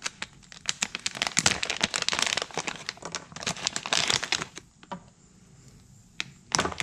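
Crinkling of plastic packaging being handled and unwrapped, a dense run of crackles for about four and a half seconds. A short lull follows, then another burst of crinkling near the end.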